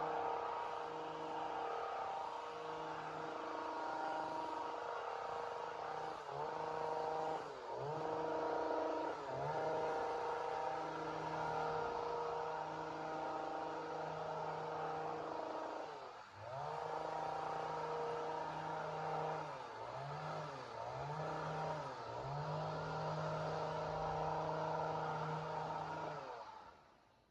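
Two-stroke chainsaw running at high revs, with several brief dips in engine speed that recover at once. It dies away near the end.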